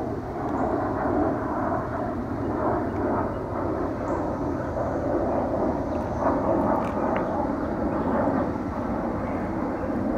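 Steady drone of a distant engine, with a faint held tone running through it.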